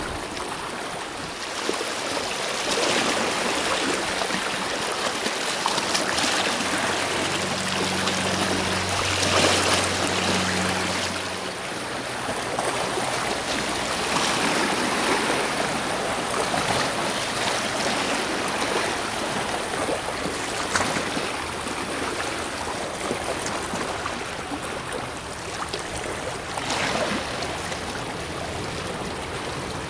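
Small sea waves washing onto the shore, swelling every few seconds. A faint low hum is there through roughly the first dozen seconds, then stops.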